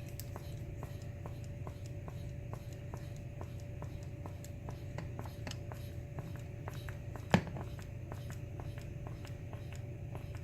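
Mityvac hand pump being worked to build air pressure in a canning jar of vinegar-and-water cleaning solution, a steady string of light clicks over a steady hum. One sharp, louder click about seven seconds in.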